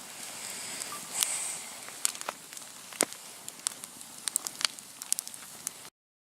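Wood campfire crackling: scattered sharp pops and snaps over a soft steady hiss, cutting off abruptly near the end.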